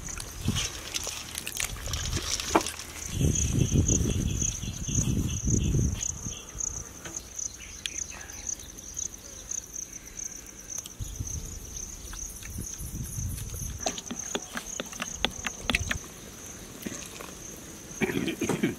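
Insects chirping steadily in a high, pulsing trill, with stretches of low rumbling noise a few seconds in and again around the middle, and a run of light clicks and knocks late on.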